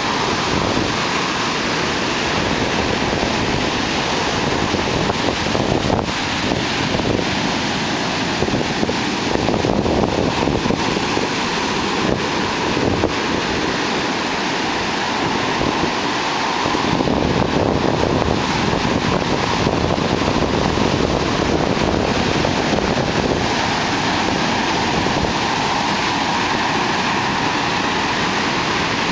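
Big ocean surf breaking close by, with a continuous rush of whitewash washing up the shore. It grows a little louder twice as bigger waves break.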